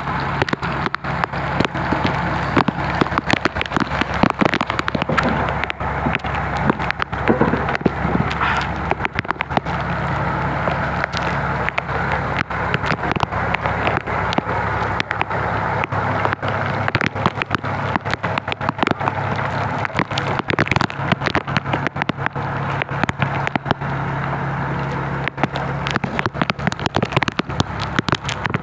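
Heavy rain falling, a dense irregular crackle of drops, over a steady low engine hum.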